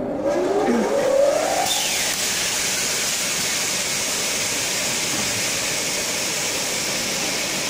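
The 3 kW motor of a double-head aluminium cutting saw spinning up, a rising whine over the first second and a half, then running with a steady high hiss.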